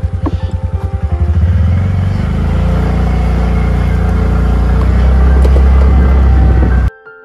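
Motorcycle engine running with an even, fast low putter, then settling into a smoother, steadier run about two seconds in as it picks up speed. It cuts off abruptly near the end, giving way to soft piano music.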